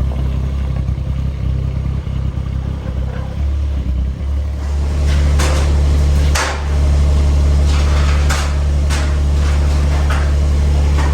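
An engine or motor running steadily with a low hum. A little under halfway through it gets louder, and from then on a series of sharp knocks or clatters comes over it.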